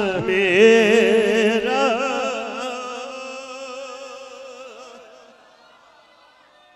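A man singing one long, ornamented note at the end of a line of a Punjabi devotional verse, its pitch wavering. The note then fades slowly over several seconds until it is almost gone near the end.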